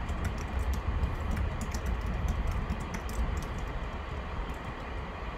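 Typing on a computer keyboard, a quick irregular run of key clicks entering an email address, over a steady low rumble.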